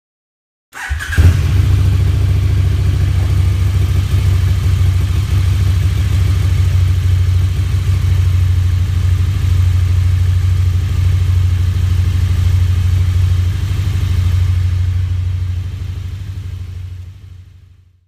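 Motorcycle engine cutting in abruptly about a second in and running steadily, then fading out near the end.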